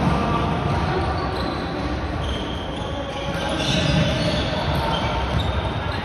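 Floorball play on a sports-hall court: players' shoes squeak on the floor amid the clatter of sticks and ball, with the echo of a large hall. The squeaks are thickest midway through.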